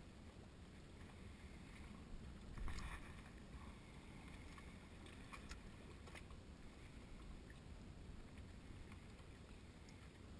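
Faint small waves lapping against a wooden dock, with a low wind rumble and a brief louder rush of noise about two and a half seconds in.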